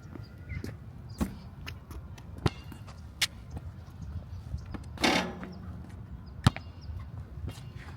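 A basketball bouncing on an outdoor court: a handful of sharp, irregular knocks and a longer, louder noisy hit about five seconds in. Under it is a low rumble of wind on the microphone.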